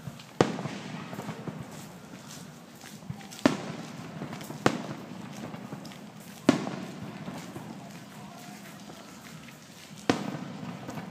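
Fireworks display: five sharp aerial shell bursts, each followed by a fading rumbling echo, spread irregularly a second or more apart.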